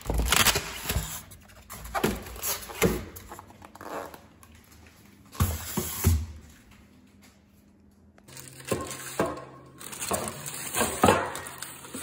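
Handling noise of unpacking: plastic wrap crinkling and rustling, with knocks of the wrapped stainless steel door handles and a styrofoam block on a stone countertop. The sounds come in irregular bursts, with a quieter spell about seven seconds in.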